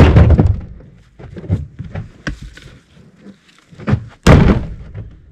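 Two heavy thuds about four seconds apart, with smaller knocks and clunks between: pieces of firewood landing in a pickup truck's bed.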